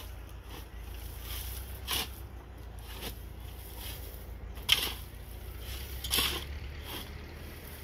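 Shovel blade scraping and scooping dry, dusty soil in repeated strokes, about one every one to one and a half seconds, the loudest about two-thirds of the way through.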